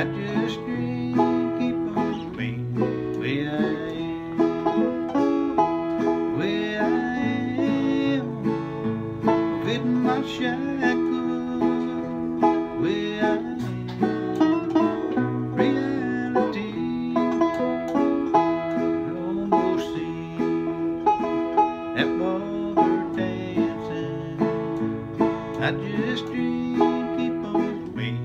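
Bluegrass-style tune with a picked banjo and guitar.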